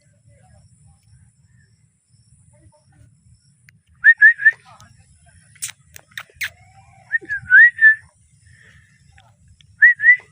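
A parrot giving short, rising whistled chirps: a quick group of three, then a longer run a few seconds later and two more near the end, with a couple of sharp clicks in between.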